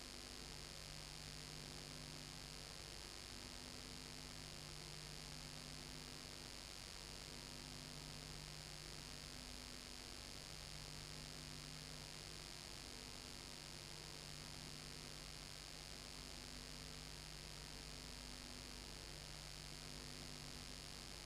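Faint steady hiss and low electrical hum on an otherwise empty soundtrack, with no sound from the filmed scene. The hum tones drop out and return in a slow, regular cycle of about three seconds.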